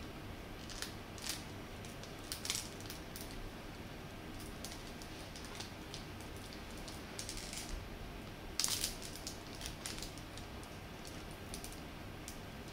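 Thin clear plastic bag around a senbei rice cracker crinkling and crackling in scattered sharp bits as it is slowly pulled open by hand, loudest a little past the middle. It is making a lot of noise.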